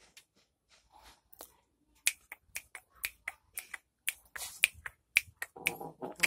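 A run of sharp, quick clicks, about two to three a second, starting about two seconds in.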